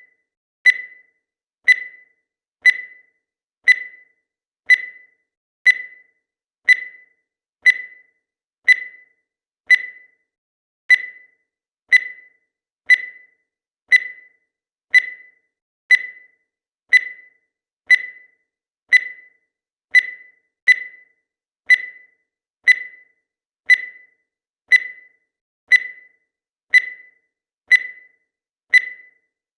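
Countdown timer's tick: a short, high beep about once a second, each one fading quickly, in a steady even rhythm.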